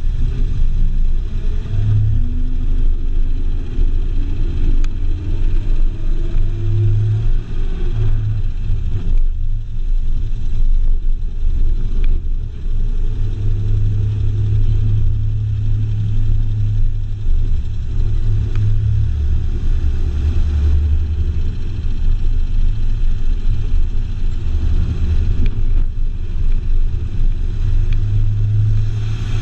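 Car on the move: a steady low rumble of engine and road noise, with the engine's pitch rising a few times in the first several seconds as it accelerates.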